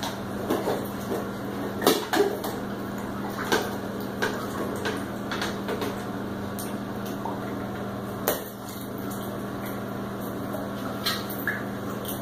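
Bathwater splashed by hand and scooped with a plastic bowl, with several sharp knocks of the bowl and toys against the tub, the loudest about two seconds in. A steady low hum runs underneath.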